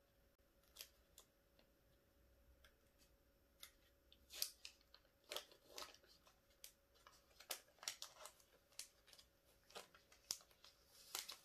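Faint, irregular crackles and small ticks of a test-kit swab's peel-open wrapper being slowly pulled apart by hand, sparse at first and more frequent in the second half.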